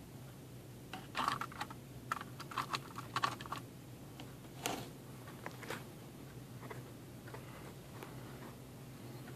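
A quick run of light clicks and taps about a second in, lasting a couple of seconds, then one louder tap near the middle and a few faint ones after, over a low steady hum.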